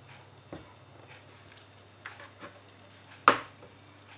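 Glass jar's screw-on lid being twisted tight by hand through a cloth towel, with faint rubbing and a few light clicks. A sharp knock a little after three seconds in as the jar is set down upside down on the board.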